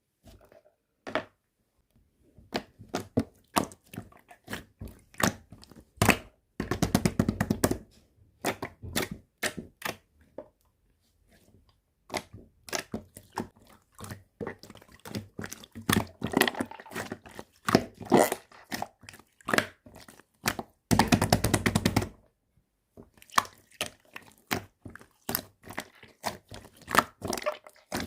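Slime being squished, pressed and stretched by hand: a string of sharp clicks and pops from trapped air, with dense runs of rapid crackling every few seconds and short pauses between.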